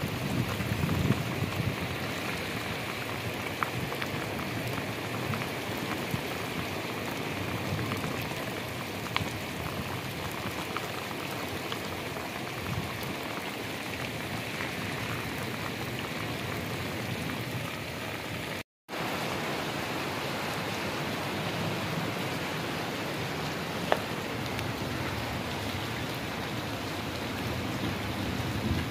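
Heavy rain pouring steadily on lawns and paving, with a few louder drops ticking close by. The sound cuts out for a split second about two-thirds of the way through.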